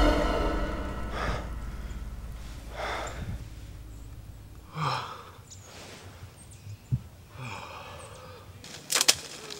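A man breathing heavily: about five gasps and sighs, each a second or two apart, as background music fades out at the start.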